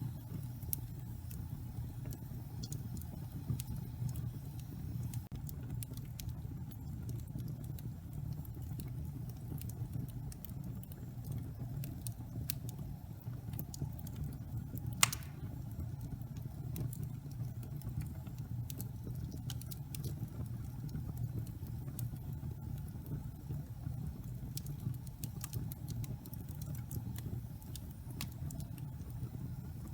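Wood fire in a fireplace crackling, with scattered sharp pops over a steady low rumble of the flames and one louder pop about halfway through.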